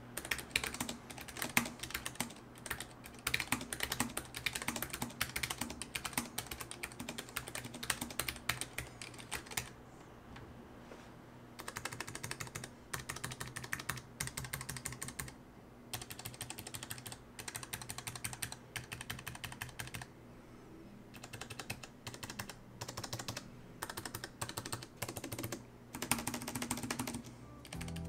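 Typing on a Keychron K5 SE low-profile mechanical keyboard fitted with optical hot-swappable switches: linear whites on the letters, numpad and arrows, and tactile browns on the other keys. Quick runs of light key clacks, broken by a few short pauses.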